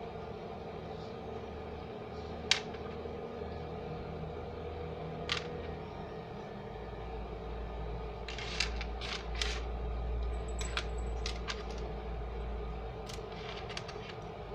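Sharp clicks and light clinks of tools and glass pieces handled on a workbench, single ones a few seconds apart and then a quick run of them past the middle, over a steady low hum.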